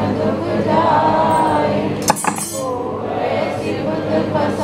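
Kirtan: a group of voices singing a Sikh hymn over a steady low drone, with a brief metallic clink about two seconds in.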